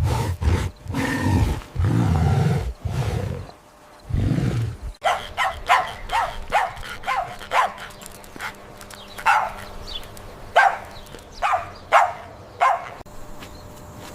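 Animal calls in two parts: for about five seconds, a series of deep, low, rumbling calls; then, after an abrupt change, short sharp bark-like calls, roughly one a second.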